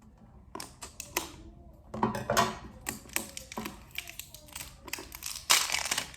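A plastic slime container being worked open by hand: a run of irregular clicks and crackles from the plastic lid. A louder burst of crackling comes near the end.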